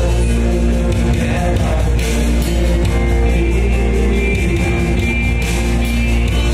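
A man singing a song into a microphone over loud amplified backing music with a steady bass.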